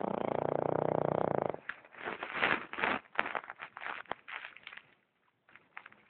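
Boston Terrier snoring in its sleep: one long buzzing snore for the first second and a half, then a run of short, irregular snorts with sharp clicks that dies away about five seconds in.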